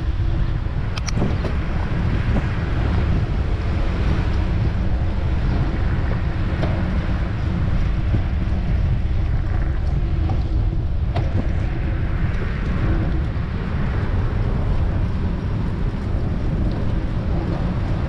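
Wind rushing over the microphone while riding a bicycle along a city street, steady and heavy in the low end, with street traffic underneath. A couple of sharp clicks about a second in and about eleven seconds in.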